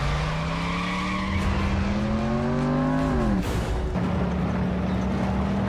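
Animated vehicle engine sound effect climbing steadily in pitch for about three seconds, dropping sharply, then holding a steady hum.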